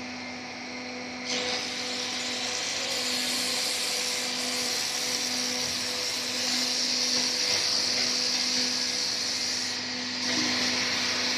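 Exhaust-pipe rolling and forming machine running with a steady motor hum and whine; the noise steps up about a second in and again near the end.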